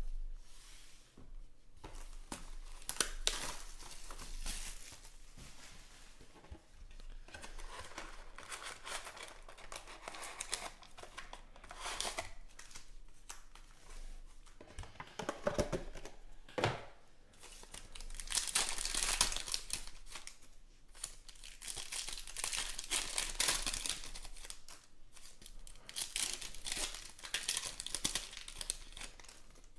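Foil wrappers of 2020 Panini Contenders Football card packs being handled and torn open by hand: irregular crinkling, rustling and tearing with small clicks, louder in stretches during the second half.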